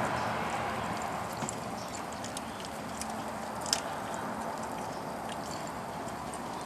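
Aluminium bonsai wire being wound around a juniper branch, with the needled foliage rustling and scattered small clicks, one sharper click nearly four seconds in.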